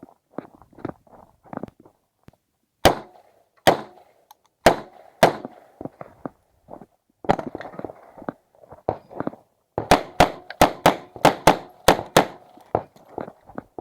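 Uzi Pro 9 mm pistol fired in semi-auto during an IPSC stage: four shots spaced under a second apart, then a pause filled with footsteps and gear movement, then a fast string of about ten shots.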